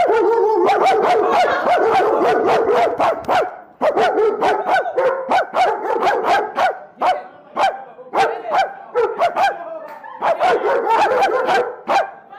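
A bark-off: a man barking rapidly at a German Shepherd and the dog barking back, many short barks a second, with a brief pause about four seconds in.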